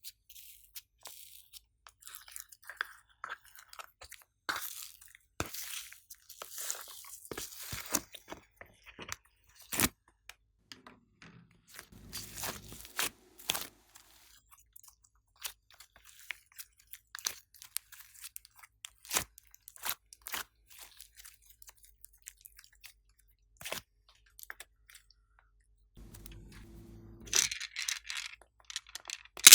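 Slime being squeezed, stretched and mixed by hand, giving irregular sharp crackles and pops as air pockets burst.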